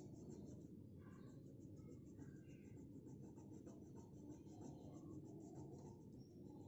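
Faint scratching of a colour pencil shading on paper.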